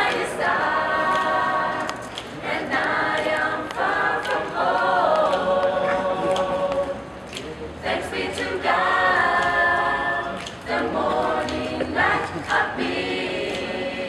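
A cappella street choir of mostly young women's voices singing in unaccompanied harmony, in phrases with brief breaks between them.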